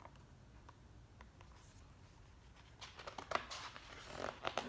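Pages of a hardback picture book being handled and turned, with a run of short papery rustles and flaps starting about three seconds in, after a faint quiet room.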